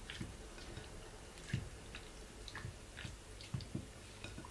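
Raw chicken pieces being stirred in a soy sauce marinade in a ceramic bowl: faint, irregular wet squelches with a few small clicks of the utensil.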